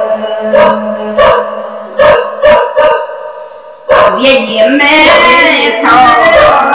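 Backing music with an evenly spaced plucked-string beat over steady held notes. About four seconds in, a woman's voice comes in singing a wavering Red Dao lượn folk melody over it.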